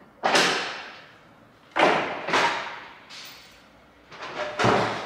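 Steel towbar knocking against the car's chassis legs as it is offered up and fitted: several sharp clunks, each dying away over about a second.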